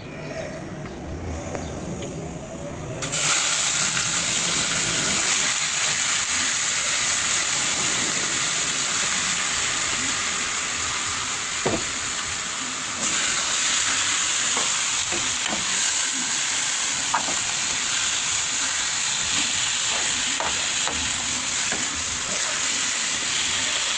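Chicken frying in a hot pot, a loud, steady sizzle that starts suddenly about three seconds in, with occasional clicks of a utensil stirring. The chicken is browning with sugar to take on colour without sauce.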